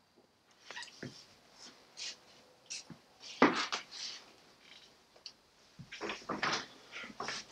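Cast-iron hand printing press being worked, with scattered knocks and scrapes, a louder clunk about three and a half seconds in and another run of clunks near the end.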